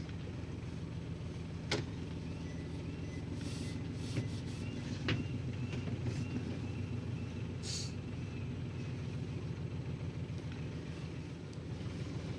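A sailboat's inboard engine running steadily as the boat is brought into its slip under power, with a couple of sharp knocks on deck.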